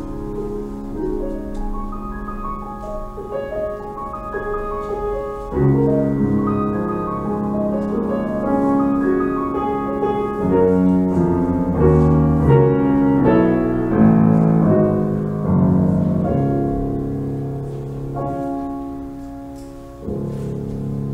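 Solo piano playing a classical-style piece of chords and melody, each note fading as it rings, with a fuller chord struck about five seconds in and another near the end.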